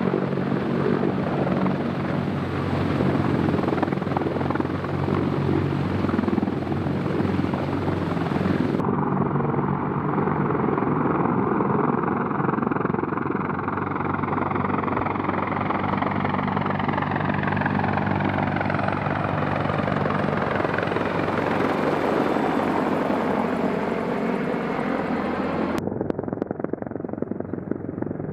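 CH-53E Super Stallion heavy-lift helicopter running close by, with the steady low beat of its rotor and turbine engines. In the middle stretch, as it flies past, the tone sweeps. The sound changes abruptly about nine seconds in and again near the end.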